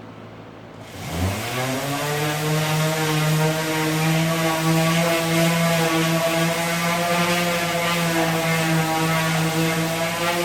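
Electric motor of a woodworking machine switched on about a second in, rising in pitch as it spins up, then running steadily at full speed.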